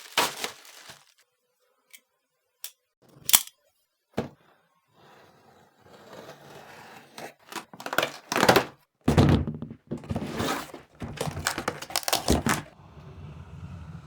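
Cardboard boxes being handled and cut open: a few separate knocks and thunks, then from about six seconds in a busier run of scraping, tearing and knocks.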